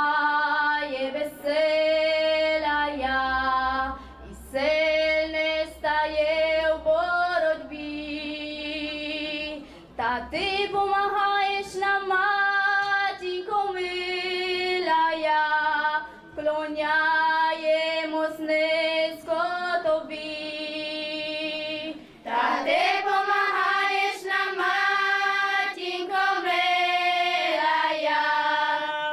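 A girl soloist sings a Ukrainian church song unaccompanied into a microphone, in long held phrases. About 22 seconds in, the girls' choir joins and the singing grows fuller.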